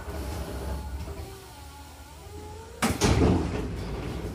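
Hankyu commuter train coming to a stop with a low rumble and a faint whine falling in pitch, then about three seconds in its sliding passenger doors open with a sudden loud rush of noise and the clatter of the door mechanism.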